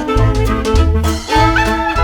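Upbeat swing-style instrumental music with a walking bass, a steady beat and melody instruments.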